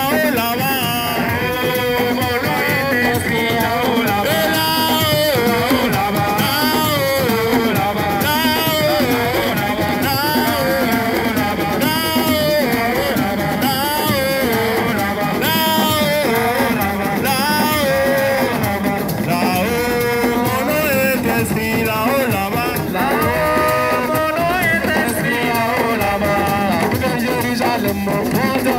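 Music: a wavering, ornamented sung melody over dense, steady rhythmic percussion and instruments.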